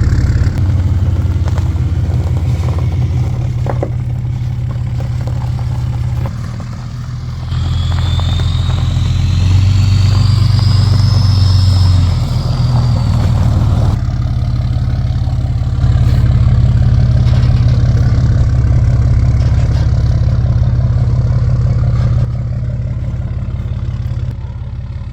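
A vehicle engine running, its low drone stepping up and down in pitch and loudness as the load changes. A high whine rises and falls over several seconds in the middle.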